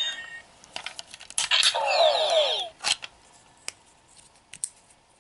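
Plastic clicks and rattles from a Legendary Morpher toy as its Ranger key is turned back and pulled out, with a short squeaky scrape of plastic about two seconds in. The last of the morpher's electronic sound effect dies away at the very start.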